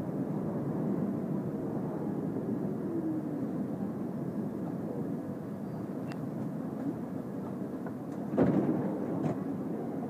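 New York City subway train on the 1 line running with a steady rumble, with a sharp clank near the end.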